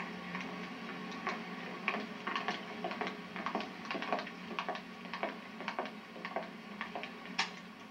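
Irregular light clicks and clinks, two or three a second, over a steady low hum.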